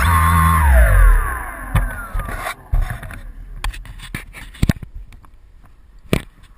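A motor's whine falling steadily in pitch and fading out over the first two and a half seconds, then scattered clicks and knocks.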